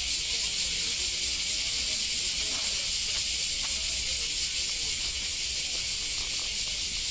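Outdoor market ambience: a steady high hiss over faint chatter from a crowd of people, with a low rumble underneath.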